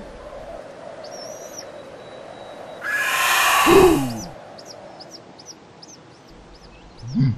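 Cartoon sound effects: a brief high warble, then a loud rushing burst with a falling voice-like cry, followed by a run of short high bird-like chirps at about four a second.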